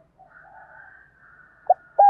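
Spotted dove starting its coo: a soft, husky lead-in, then a short loud coo note near the end.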